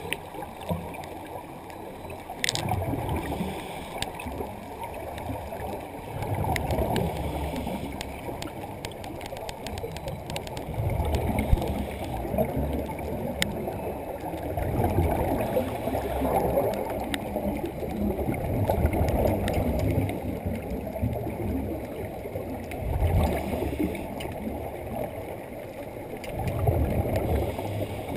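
Scuba regulator breathing recorded underwater: a muffled gurgling rumble of exhaled bubbles that swells about every four seconds with each breath.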